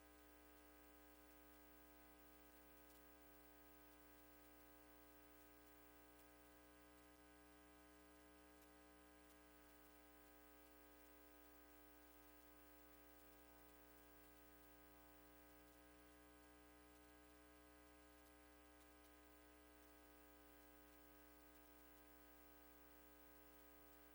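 Near silence: a faint, steady hum of several unchanging tones.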